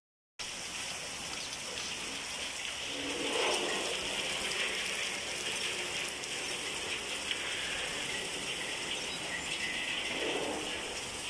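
Heavy typhoon rain falling steadily, a continuous hiss of drops that swells a little about three seconds in and again near the end.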